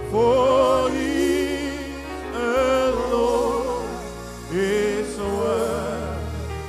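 Worship singing: a voice holding long notes with a wavering vibrato over sustained instrumental chords, in three phrases that each start loud and fade.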